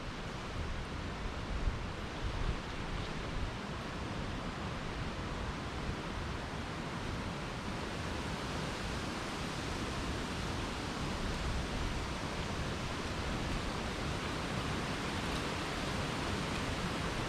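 Steady rushing noise of wind across the microphone, with low, uneven buffeting and no other clear sound.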